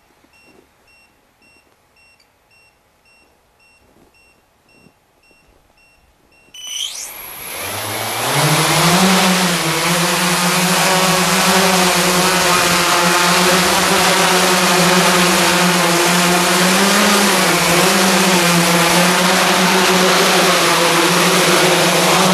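Large hexacopter's six electric motors and propellers spinning up with a rising whine about seven seconds in, then a loud, steady propeller drone as it lifts off and hovers, the pitch wavering slightly as the flight controller holds it level. Before the spin-up there are only faint, evenly spaced high beeps.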